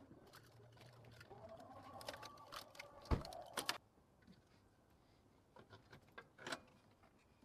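Faint clicks and knocks of engine parts being handled under a car's hood. A cluster about two to four seconds in includes one louder knock, and a few more clicks come near the end.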